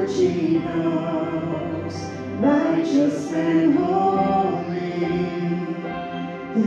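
A worship song playing: singing voices over sustained instrumental accompaniment.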